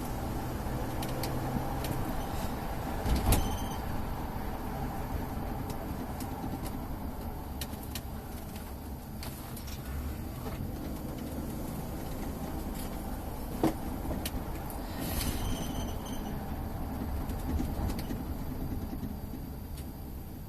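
Car in motion: steady low engine and road rumble, with a sharp knock about three seconds in and a click near the middle.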